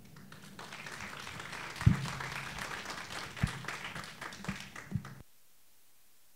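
Audience applauding, with a few dull thumps mixed in, the loudest about two seconds in. The clapping cuts off suddenly near the end.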